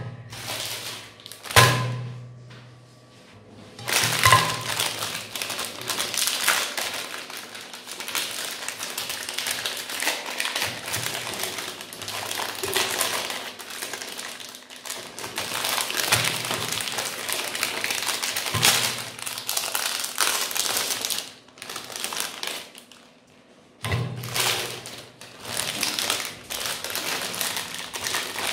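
Magnum ice cream bar wrappers of metallised plastic film crinkling and tearing as they are peeled open by hand, with a few knocks against a glass plate. The crackling runs in long stretches, broken by short pauses about two seconds in and around 22 seconds.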